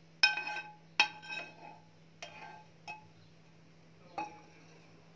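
A metal spoon knocking against a pan and a metal tray as the last of the chocolate sauce is scraped out. There are five short ringing clinks, and the first two are the loudest.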